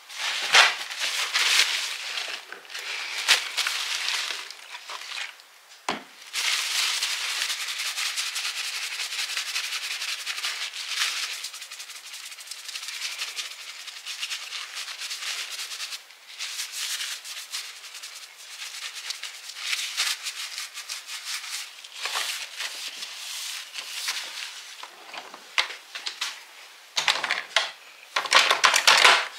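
Small plastic cosmetics being rummaged through in a drawer: continuous rattling, rustling and rubbing of the containers against each other and the drawer, with louder patches.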